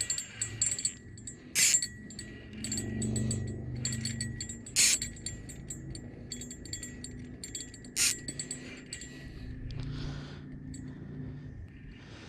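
Small bell clipped on a catfishing rod jingling as the rod bends and shakes with a hooked catfish on the line, with three sharper jingles about three seconds apart.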